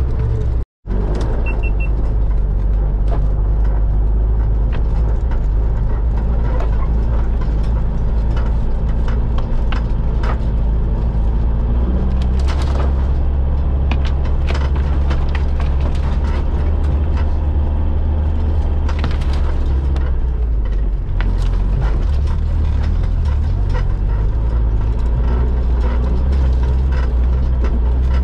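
Mitsubishi Pajero's engine running steadily as it drives a rough forest trail, with knocks and rattles from the body and suspension over bumps. The engine note shifts about halfway through and again about twenty seconds in. The sound cuts out for an instant just under a second in.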